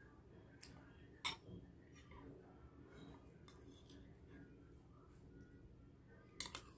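Quiet table sounds of eating: a metal spoon clinks once about a second in, then clinks a few times in quick succession against a ceramic bowl near the end as it scoops up food.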